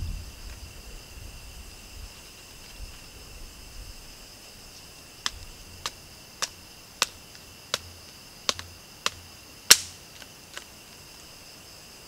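Steady chorus of night insects chirring. From about five seconds in it is broken by nine short, sharp snaps roughly every half second; the second-last is the loudest.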